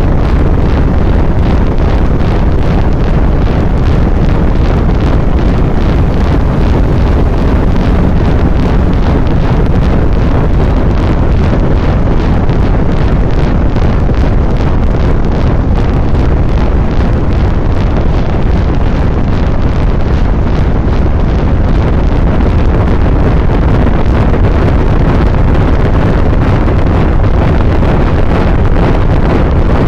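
Loud, steady rushing noise with no distinct tones or beats, heaviest in the low end, unchanging throughout.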